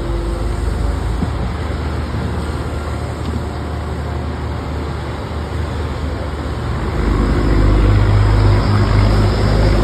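Backhoe loader's diesel engine running steadily, getting louder about seven seconds in.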